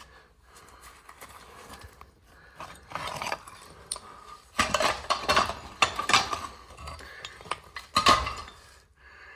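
Old cast iron pipe being broken up with a sledgehammer: irregular heavy metallic clanks and clattering, bunched in the middle with one loud strike near the end.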